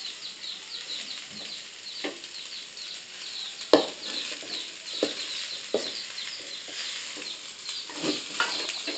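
High, rapid cheeping of small birds, several short falling peeps a second, running on without a break. Over it come a few sharp knocks, the loudest about a third of the way in. Near the end a spatula knocks and scrapes in a metal wok as fried rice is stirred.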